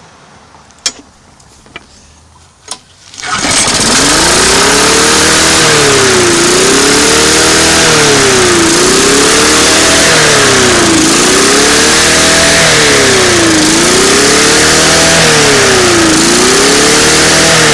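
A few sharp clicks, then about three seconds in a long-stored lawn mower's small engine starts and keeps running loudly. Its speed rises and falls over and over, about every two and a half seconds.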